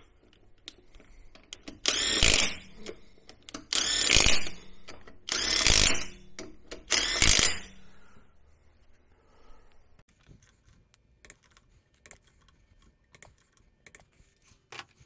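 Neiko 20V cordless impact wrench spinning lug nuts back onto a wheel in four short bursts, each under a second. A run of light clicks and taps follows.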